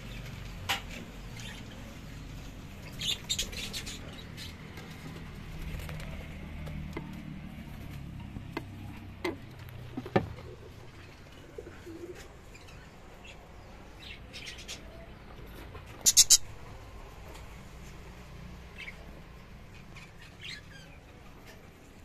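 Budgerigars chirping in short scattered bursts, the loudest about three seconds in and again about sixteen seconds in.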